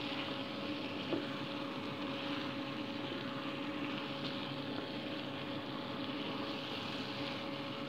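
Chicken pieces in masala sauce sizzling in a pan on the stove: a steady hiss over a constant low hum, with one small tick about a second in.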